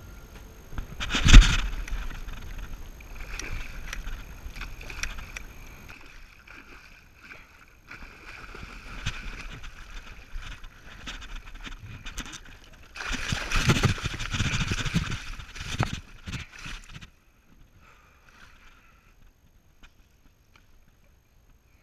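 A hooked northern pike thrashing and splashing in the shallows at the bank as it is landed: a loud splash about a second in, uneven bursts of splashing, the loudest from about 13 to 16 seconds, then it goes quiet.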